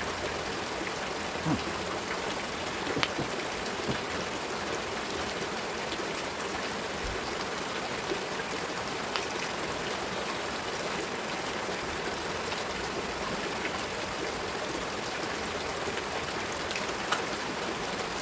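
Steady rain, an even hiss, with a few brief faint clicks and taps scattered through it, the sharpest near the end.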